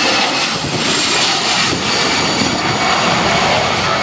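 Airliner's engines passing close, a loud steady rushing noise with a faint high whine in it.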